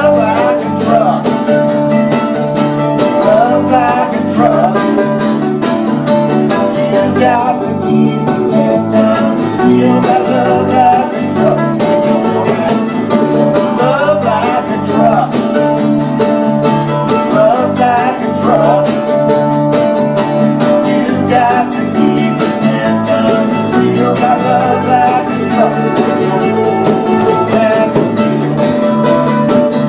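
Acoustic string band playing a country-rock song: mandolin, strummed archtop acoustic guitar, hand percussion and acoustic bass guitar through a small bass amp, all unamplified otherwise, keeping a steady beat.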